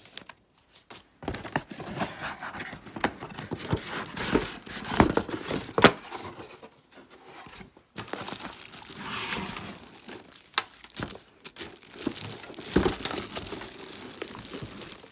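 Packaging being opened and handled: crinkling and tearing of box and plastic wrapping, with sharp clicks and knocks, and two short pauses.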